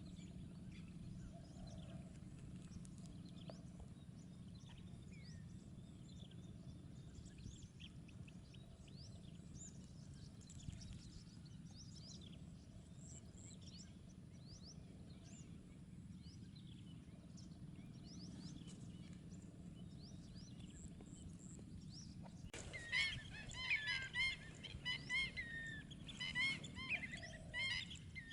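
Many birds calling at once, faint and distant over a low steady rumble. About 22 seconds in, loud, dense chirping from a close flock starts suddenly.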